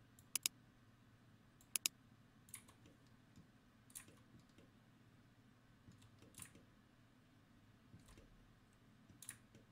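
Computer mouse clicking sparsely: two sharp press-and-release pairs in the first two seconds, then fainter single clicks every second or two, over faint room hum.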